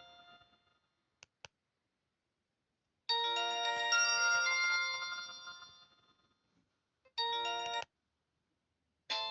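Alcatel OT-217D mobile phone playing its built-in polyphonic ringtones: the end of one melody fades out, then come two short clicks. About three seconds in, a new chiming tune starts loud and dies away over a few seconds. A brief chord sounds about two-thirds of the way through, and another tune begins at the very end.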